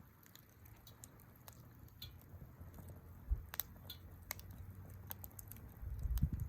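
Campfire crackling, with irregular sharp pops and snaps over a low rumble that thumps about three seconds in and swells louder near the end.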